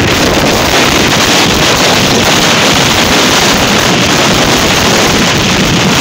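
Wind rushing over the microphone of an open moving vehicle, a loud, steady roar mixed with road and engine noise.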